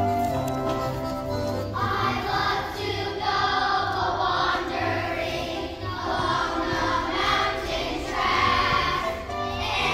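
Children's choir singing together, coming in about two seconds in over an instrumental accompaniment that plays throughout.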